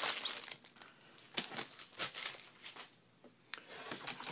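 Trading cards and their packaging being handled: a series of short, crisp rustles and crinkles with a brief lull near the middle.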